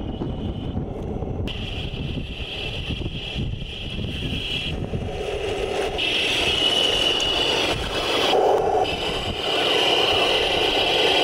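Electric drive of a 1:16 scale Taigen RC tank whining as its plastic tracks grind over loose dirt, the whine stopping and starting as the tank moves in spurts. It gets louder about halfway through as the tank comes close, with wind rumbling on the microphone throughout.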